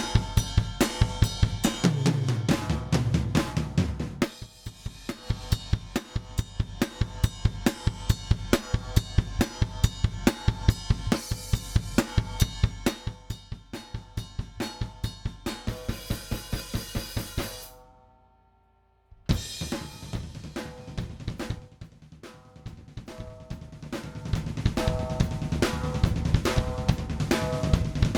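A recorded acoustic drum kit playing a steady groove of kick, snare, hi-hat and cymbals, played back as a demonstration of compression. It cuts out for about a second and a half about two thirds of the way through, then starts again.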